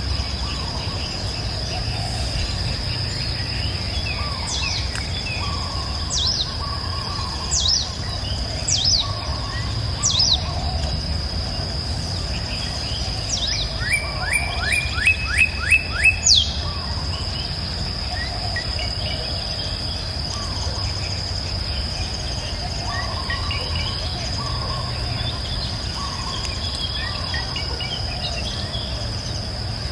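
Several songbirds calling, with sharp high falling whistles and, a bit after the middle of the first half, a quick run of about eight descending notes; softer, lower calls continue after that. A steady high insect drone and a low rumble of background noise sit underneath.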